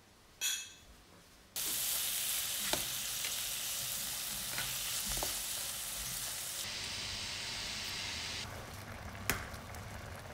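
Kimchi stir-frying in a nonstick pan, a steady sizzle that starts suddenly a little over a second in, with a few sharp clicks and scrapes as a fork and spatula turn it. Towards the end the hiss drops to a quieter level as a pot of ramen boils. A brief high-pitched chirp is heard about half a second in, before the sizzle.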